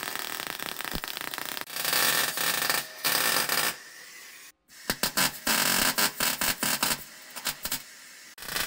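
MIG welder arc crackling as it welds the steel tubes of a roll cage into a car's shell, in several short runs that start and stop abruptly, with a brief break about halfway through.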